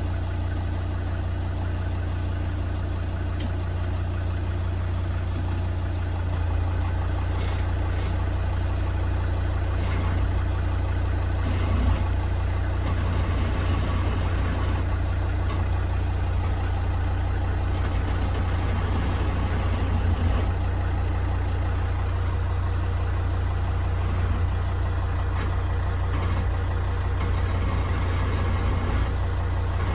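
Volvo XC90 with a steady low engine rumble.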